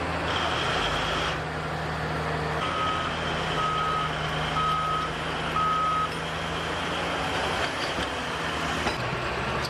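Heavy machinery diesel engine running steadily, with a reversing alarm beeping four times, about once a second, starting around three seconds in.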